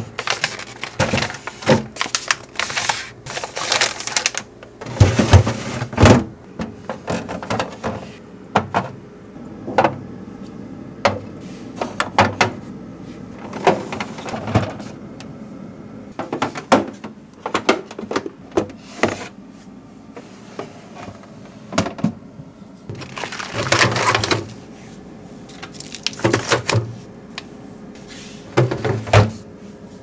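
Freezer drawers being pulled out and pushed shut while plastic-bagged food and containers are handled: irregular clicks, knocks and crinkling rustles, with bursts of louder handling about five, twenty-four and twenty-nine seconds in.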